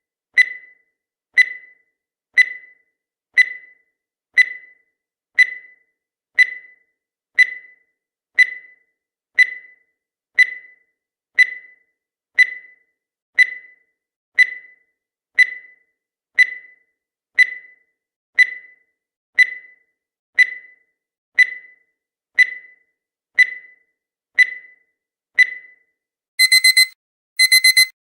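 Countdown timer sound effect: a short electronic beep once a second, about 26 times. Near the end it gives way to a louder, harsher alarm beeping in bursts of about half a second, signalling that the time is up.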